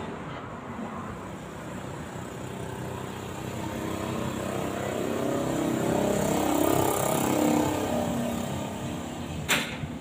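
A motor vehicle passing, growing louder to a peak about seven seconds in and then fading, with a single sharp click shortly before the end.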